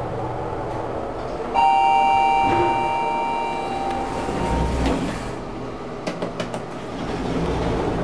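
Schindler Elegant MRL lift arriving at a floor: a single two-tone arrival chime rings out about a second and a half in and fades over a couple of seconds, over the steady hum of the cab. The doors then slide open, with a low rumble near the middle and a few quick clicks after.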